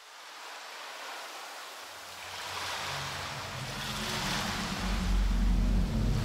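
A rushing, surf-like noise fades in from silence and swells and ebbs, with low steady tones of a background music track coming in about halfway.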